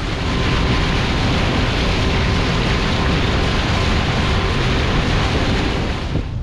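Steady loud rush of wind and sea around a small boat, with a faint steady hum underneath; it breaks off abruptly near the end.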